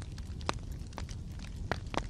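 Wood fire burning in a fireplace: a steady low rumble of the flames with irregular sharp crackles and pops, the loudest about half a second in and just before the end.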